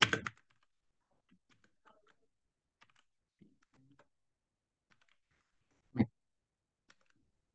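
Typing on a computer keyboard: scattered faint keystrokes, with one louder sharp knock about six seconds in.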